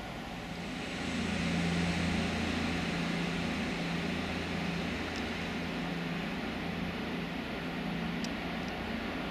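Diesel freight locomotive engine running with a steady low hum, getting louder about a second in.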